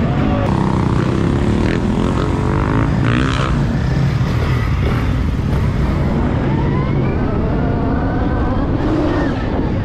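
Dirt bike motors running and revving, their pitch rising as they speed up, over a steady loud rumble.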